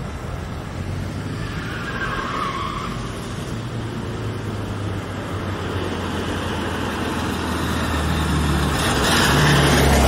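A Volkswagen Beetle's air-cooled flat-four engine runs as the car drives around, growing louder as it comes close near the end. The tyres squeal briefly about two seconds in.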